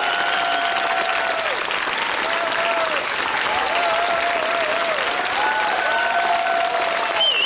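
Studio audience applauding steadily, with cheering voices over the clapping. A shrill warbling whistle starts just before the end.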